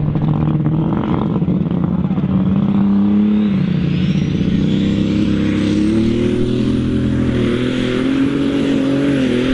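John Deere Super Stock pulling tractor's engine at full throttle under the load of the pulling sled, its pitch climbing steadily with a short dip partway through. A high whine rises from about three seconds in and then holds.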